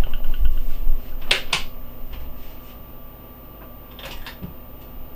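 Sharp clicks of a studio lamp being switched off, a pair about a second and a half in and another pair near the end, after some handling bumps at the start. Under them, a faint steady hum from the running diffuser.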